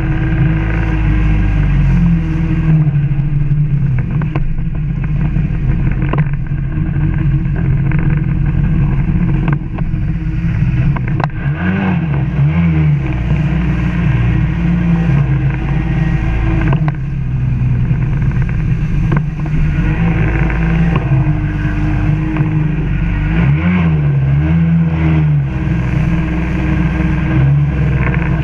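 1996 Sea-Doo GSX 800 personal watercraft at speed, its Rotax 787 two-stroke twin engine running hard under throttle. The engine note dips and climbs back twice, once about halfway through and once near the end, as the throttle is eased and reopened.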